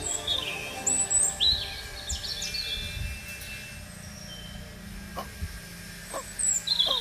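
Small birds chirping and tweeting in quick, sharp calls, busiest in the first three seconds and then sparser, over soft background music.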